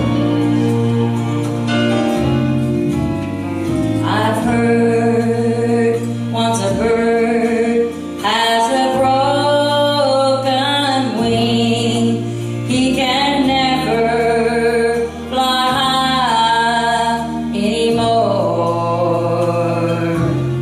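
A woman singing a gospel song into a microphone over an instrumental accompaniment; the accompaniment plays alone at first and her voice comes in a few seconds in.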